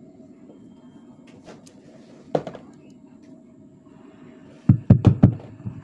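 Handheld microphone being handled and tapped while live through the mixer and speaker: a single knock about two seconds in, then a quick run of about five heavy thumps near the end, over a low steady hum from the sound system.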